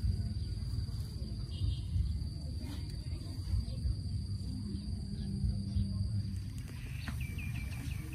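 Rural outdoor ambience: a steady high-pitched insect drone over a low rumble, with a bird giving a quick run of about five chirps near the end.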